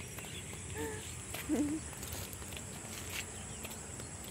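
Quiet open-country ambience: a steady high-pitched insect drone. Two brief faint calls come within the first two seconds, and there are a few light footsteps.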